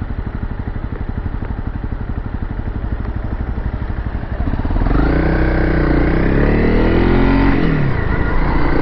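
Motorcycle engine running at steady low revs, then about four and a half seconds in getting louder as it revs up under acceleration, the pitch rising, dropping briefly near the end and climbing again.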